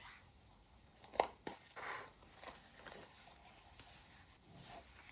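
Faint handling of handmade paper and cardstock journals: a sharp tap about a second in, then soft rustling and small knocks of paper being moved.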